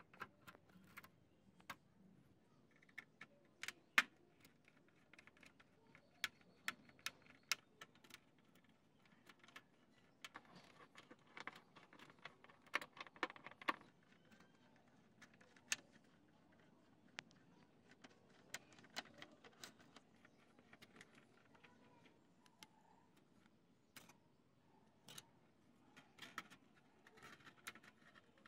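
Scattered small metallic clicks and taps of a precision screwdriver working tiny screws out of a smartphone's back frame, with small parts and tools clinking on a metal tray. A busier run of clicks comes about ten to fourteen seconds in, and the sharpest single click about four seconds in.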